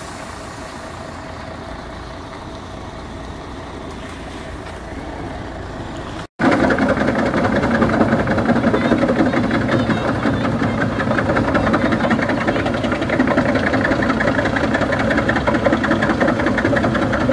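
A large truck's diesel engine runs steadily at moderate level. About six seconds in it gives way to a much louder truck-mounted wood chipper working steadily, chipping brush and branches fed in by its crane.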